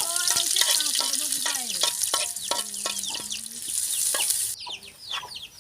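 Food sizzling in a hot pan, a steady hiss that cuts off sharply about four and a half seconds in, with chickens clucking and chicks peeping.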